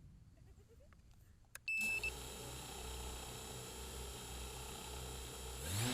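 A click and a short high beep, then the FPV quadcopter's electric motors running with a steady low hum; near the end the motors spin up with a rising whine as the throttle is opened.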